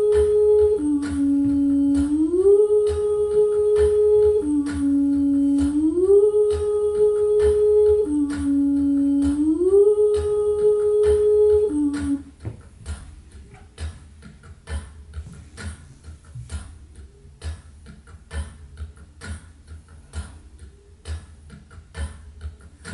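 A hummed two-note phrase, sliding up about a fifth, holding the upper note, then dropping back, repeated about every three and a half seconds. It stops suddenly about twelve seconds in, leaving only faint scattered taps and clicks in a quiet room.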